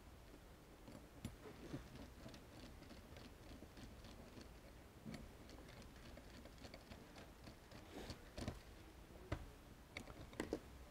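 Faint scattered ticks and light clicks of a small screwdriver turning a screw in an aluminium jig, with a few sharper taps near the end.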